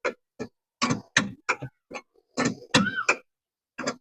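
Ratchet wrench clicking in short, irregular strokes while a rear spark plug on a Northstar V8 is unscrewed.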